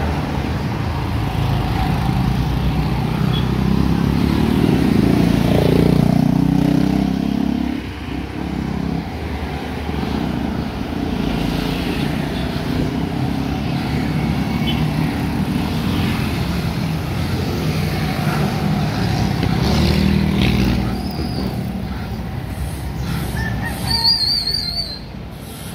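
Road traffic passing close by: car and motorcycle engines running. One vehicle swells loudest a few seconds in and another passes around twenty seconds in. A short high warbling tone sounds near the end.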